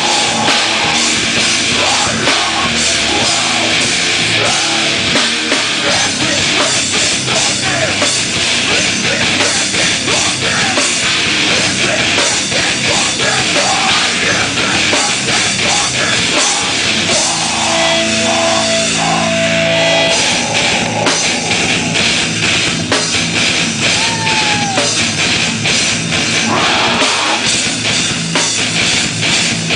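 Heavy metal band playing loud live, with distorted guitars over a drum kit.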